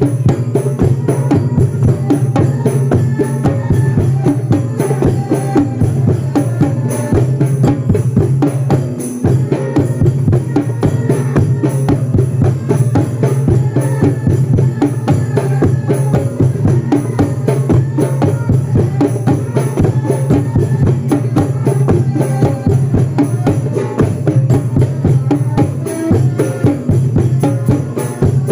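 Percussion music: drums played in a fast, steady rhythm over a sustained low tone.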